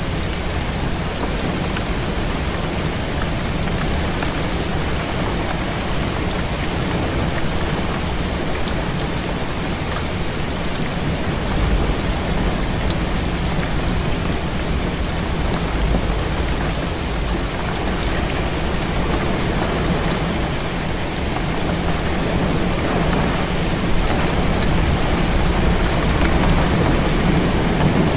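Heavy rain falling steadily on a window, with low rumbles of thunder about twelve seconds in and again near the end.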